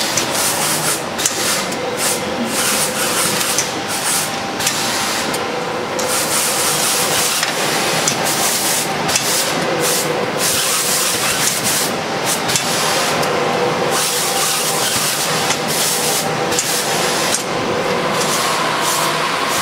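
Automatic sleeve sealer shrink-wrapping machine running, a steady mechanical hiss with a faint hum underneath, the hiss breaking off briefly every second or so.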